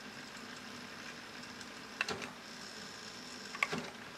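Nakamichi LX-5 cassette deck rewinding a tape: a faint steady whir of the tape transport, with a sharp click about two seconds in and another shortly before the end.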